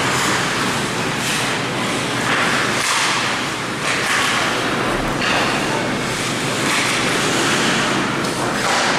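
Ice hockey play on a rink: skate blades scraping the ice in repeated hissing swells, with a few knocks of sticks and puck.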